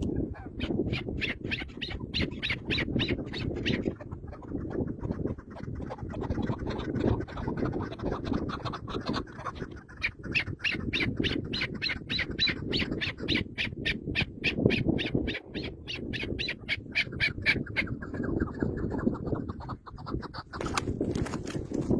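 A bird giving rapid, evenly repeated squawking calls, about four to five a second, in two long runs, over a steady low rumble.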